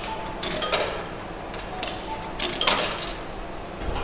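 Yen coins being fed into a coin-operated washing machine's slot, several short metallic clinks and clatters as they drop in, spaced irregularly.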